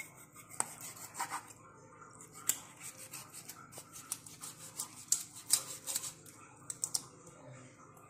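Kitchen knife cutting and scraping raw chicken meat off drumstick bones on a wooden cutting board: irregular short scrapes with a few sharp taps of the blade.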